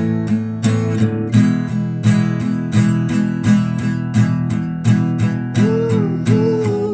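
Instrumental music: an acoustic guitar strummed in a steady rhythm, about two strokes a second, over a full low chord bed. Near the end a sliding melody line comes in above it.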